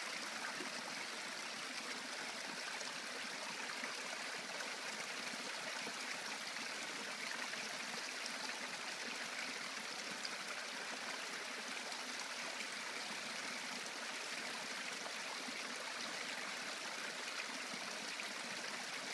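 A tiny forest brook trickling among stones: a steady, even sound of running water.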